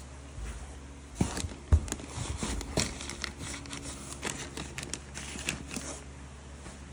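Paper- and plastic-wrapped packages handled in a cardboard box: crinkling and rustling with a string of light knocks and taps, the sharpest about two seconds in, dying away about a second before the end.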